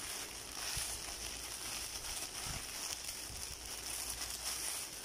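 Plastic packaging crinkling and rustling as a black plastic courier mailer bag is opened by hand and clear plastic-wrapped items are pulled out of it.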